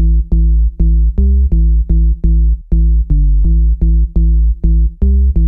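Electronic intro music: a bass-heavy synthesizer and drum-machine pattern pulsing in even beats, nearly three a second.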